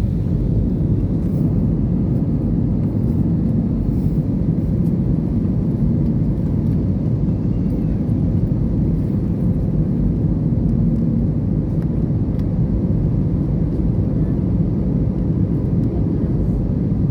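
Airplane in flight heard from inside the cabin: a steady, loud, low rumble of engine and airflow noise that does not change.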